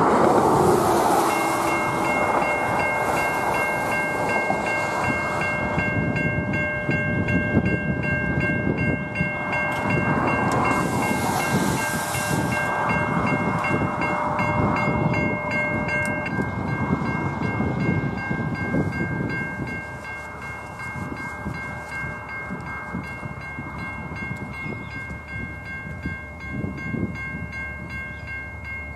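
Safetran Type 3 electronic level-crossing bells ringing steadily as the crossing activates, starting about a second in. Partway through, one of the ringing tones drops out while the others carry on.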